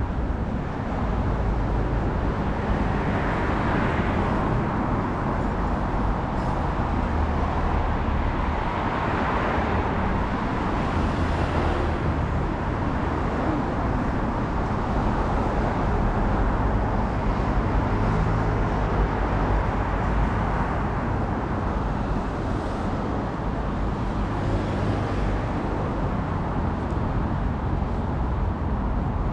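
City road traffic: a steady rush of passing cars and buses, swelling a couple of times as vehicles go by.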